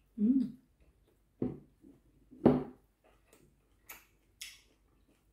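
Close-up eating noises while chewing with the mouth full: a few separate chewing and mouth sounds, the loudest about halfway through, then two short crisp lip smacks near the end.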